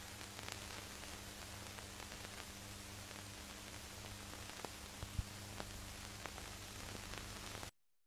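Hiss and crackle of an old archival film soundtrack with no speech, with a faint steady hum and scattered clicks; it cuts off suddenly near the end.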